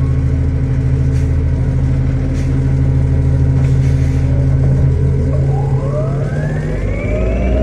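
2009 Orion VII Next Generation hybrid bus with BAE HybriDrive running steadily. About five seconds in, several whining tones rise together in pitch as its electric drive speeds the bus up.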